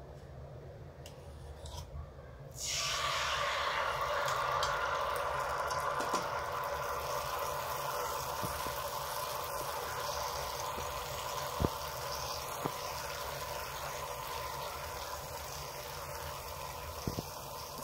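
Malpua batter hitting hot ghee in a frying pan about two and a half seconds in, setting off a steady sizzle that eases slightly as it fries. A couple of faint ticks come around the middle.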